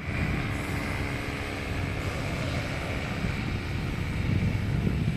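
Steady drone of engine-driven inflator fans blowing air into hot-air balloon envelopes, with wind rumbling on the microphone.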